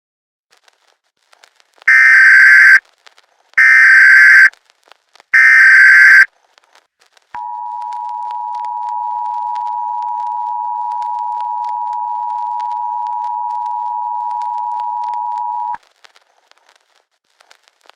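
Emergency Alert System broadcast tones. First come three short, loud buzzy data bursts of the SAME header, each just under a second long. Then the two-tone attention signal, a steady chord of two close tones just under 1 kHz, holds for about eight seconds and cuts off sharply. Together they announce that an emergency alert message follows.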